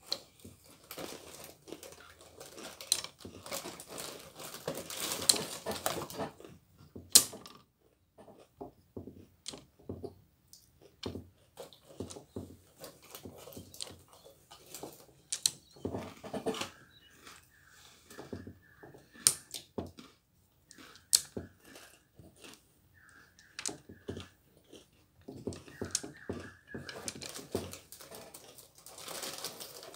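Abacus beads sliding along metal rods and clacking against each other in irregular runs of clicks, busiest in the first several seconds, with chewing in the background.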